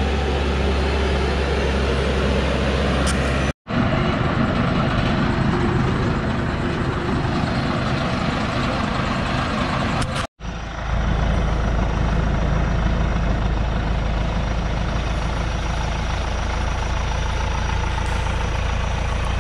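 Loaded Hoa Mai truck's engine running hard as the truck crawls through deep mud, carrying about 18 tonnes of acacia logs; a steady low drone. The sound cuts out briefly twice, about three and a half and ten seconds in.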